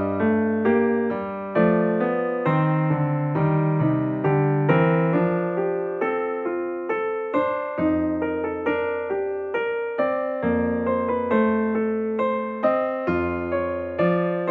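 Calm background piano music: a slow melody of struck notes, about two a second, each dying away, over held low bass notes.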